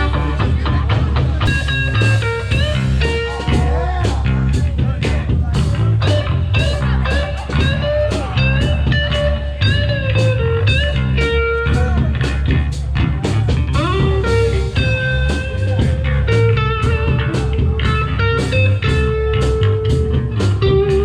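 Band jamming blues-rock: a guitar lead with bent, held notes over a steady bass line and drum beat.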